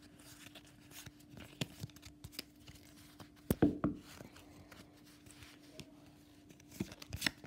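Pokémon card booster pack being torn open and its cards handled: quiet scattered crinkles and ticks of the foil wrapper, with a couple of sharper crackles about three and a half seconds in and near the end.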